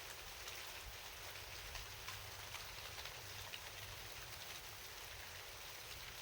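Steady rain falling, an even hiss with many individual drops ticking, over a low rumble.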